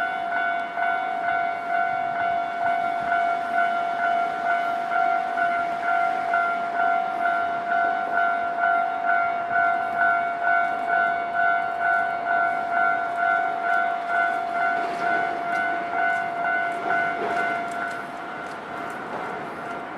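Japanese railway level-crossing warning bell ringing at about two strokes a second, with a train's rumble and clicking over the rails joining in the second half. The bell's beat stops a couple of seconds before the end, leaving a steadier tone and train noise.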